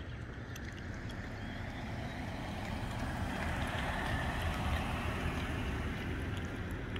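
A Toyota RAV4 SUV driving slowly past close by, its tyres and engine swelling to a peak about four seconds in and then easing off, over a steady low rumble.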